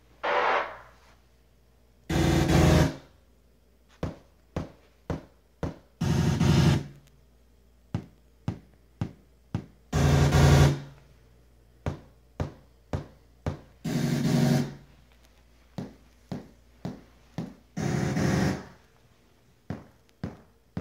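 Pioneer Elite VSX-21THX receiver's MCACC auto-setup test signals played through the home-theatre speakers. A short falling sweep comes first, then loud buzzy test bursts about every four seconds, with runs of short clicks between them.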